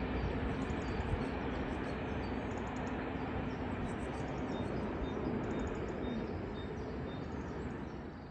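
A train passing at the lineside: a steady rumble and rush of wheels on rail with a faint engine tone, easing off near the end. Birds chirp faintly behind it.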